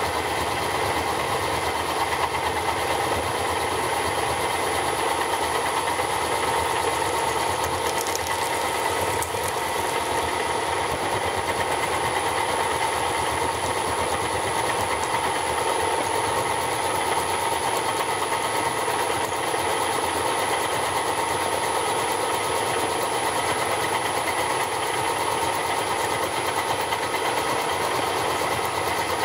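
Milling machine running with a smooth-shank end mill in a collet chuck cutting into a plastic block: a steady, even machining noise with a constant high whine that does not let up.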